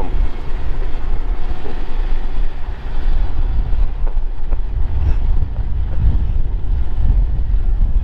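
Strong blizzard wind buffeting the microphone: a loud, uneven low rumble that rises and falls in gusts.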